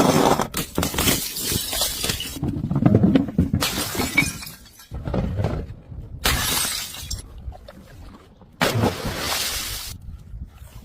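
Glass bottles shattering and crunching in about five separate smashes spread a second or two apart.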